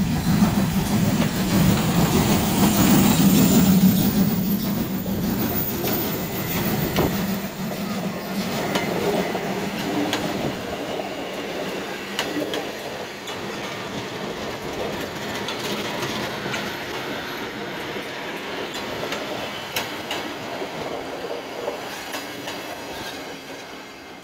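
Ty2-class steam locomotive passing close, tender first, loudest for the first several seconds. Its passenger coaches follow, rolling by with repeated wheel clicks over the rail joints and growing fainter as the train moves away.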